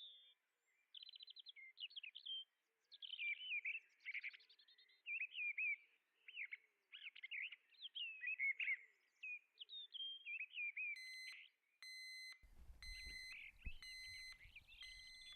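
A songbird singing a long run of quick, varied chirps and warbles. From about eleven seconds in, a repeated electronic beep comes in, sounding about twice a second, with a faint low hum under it.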